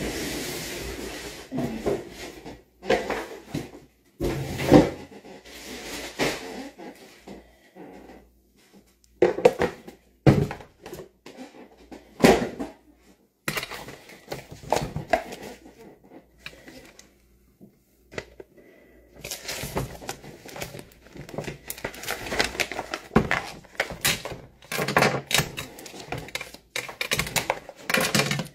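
Irregular close handling noise: rustling, clicks and knocks as things are moved about near the phone's microphone, with a short lull about two-thirds of the way through and busier rustling after it.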